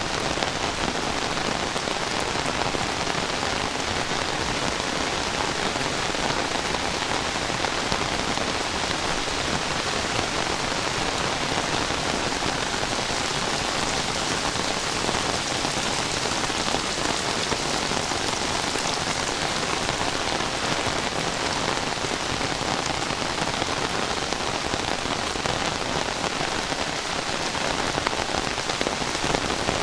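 Heavy rain falling steadily on surfaces: a dense, even hiss of rain that holds at the same strength throughout.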